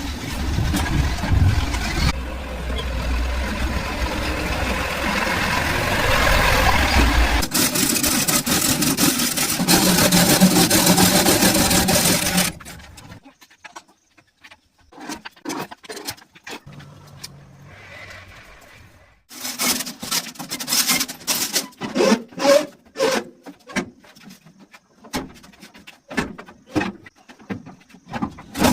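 A tractor engine running steadily, cutting out abruptly about twelve seconds in. Then scattered clicks, and from about two-thirds of the way through a quick run of sharp knocks and taps.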